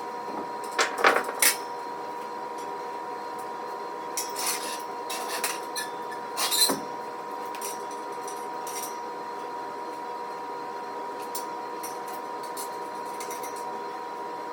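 Metal parts of a steel squat rack clinking and knocking as they are handled and fitted, a cluster about a second in and another from about four to seven seconds in, over a steady high hum.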